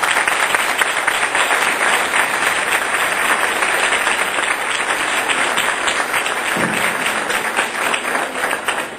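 Audience applauding: dense, steady clapping from many people, easing slightly near the end.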